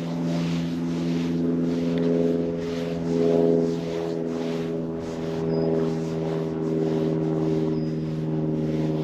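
A steady, low mechanical hum with several overtones, like a motor running, under soft rushes of noise that repeat about every half second.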